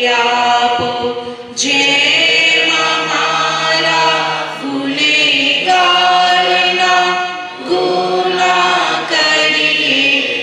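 Male voices singing a slow prayer chant into a microphone, holding long notes in phrases of about three seconds with short breaks between them.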